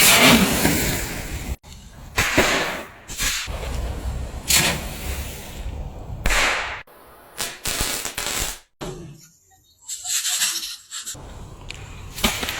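Small fireworks going off one after another: a string of sharp bangs and short bursts of hissing, some stopping abruptly.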